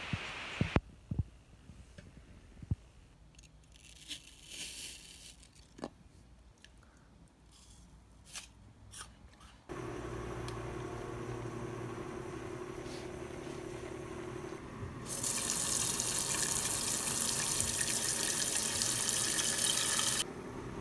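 Tap water running into a metal bowl, rinsing a bunch of Shine Muscat grapes; the flow starts about three-quarters of the way through and stops suddenly just before the end. Before it come scattered light clicks and rustles of handling, then a steady low hum.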